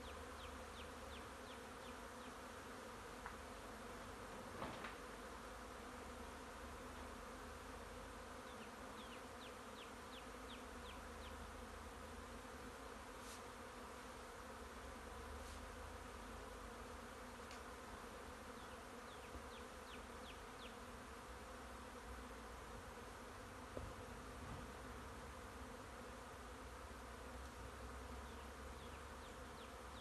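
A honey bee swarm buzzing: a faint, steady hum of many bees in flight around the hive box they are being settled into.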